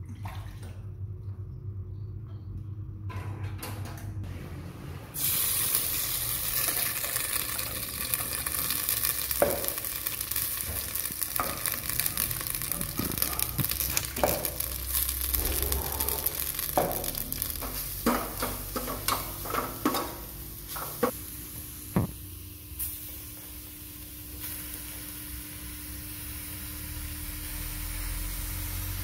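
Yellow herb paste sizzling in hot oil in a stainless steel pot, stirred with a metal ladle that knocks and scrapes against the pot. The sizzling starts suddenly about five seconds in, and the ladle knocks come through the middle.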